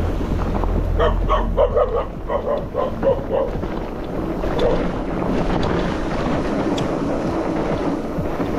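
A dog barking: a quick run of about eight barks, then one more, over wind buffeting the microphone.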